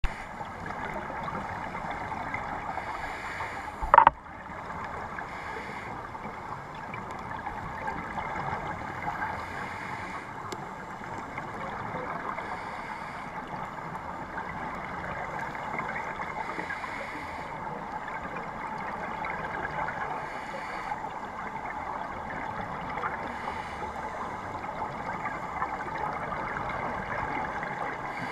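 Underwater sound heard through a GoPro dive housing on a coral reef: a steady crackling hiss, with a softer hiss swelling every three to four seconds in time with the diver's regulator breathing. There is a single sharp knock about four seconds in.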